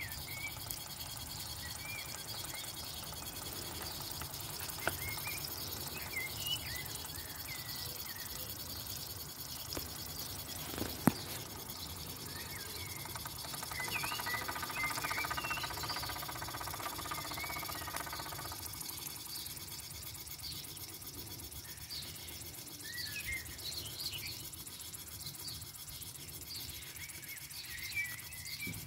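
Small birds chirping on and off over a steady low background rumble. A sharp click comes about eleven seconds in, and a louder hum swells for a few seconds in the middle.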